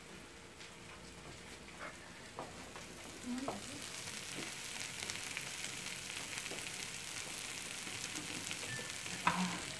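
Chopped kimchi frying in a pan, a steady crackling sizzle that grows louder about three seconds in, with a few faint knocks of a knife on a wooden cutting board.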